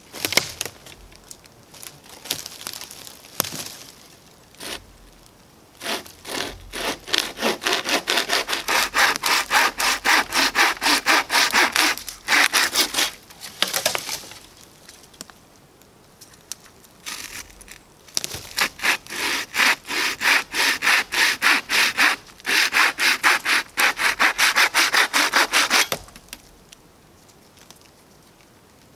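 Wooden frame saw (bucksaw) with a steel blade cutting a dry dead conifer log with quick back-and-forth strokes. The strokes come in two long bouts with a short pause between, after a few light knocks at the start.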